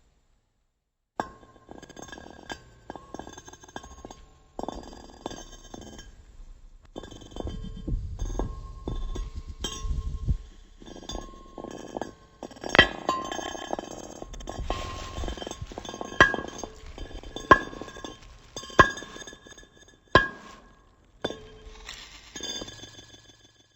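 Glass objects clinking and being struck, each hit ringing on with clear steady tones, in an irregular series. A low rumbling stretch comes about a third of the way in, and several sharper, louder strikes come in the second half.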